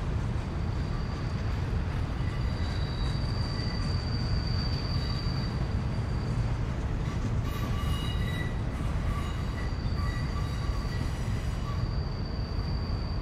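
Freight train rolling around a tight curve: a steady low rumble of the cars with thin, high steel-wheel flange squeal in several held tones that fade and return.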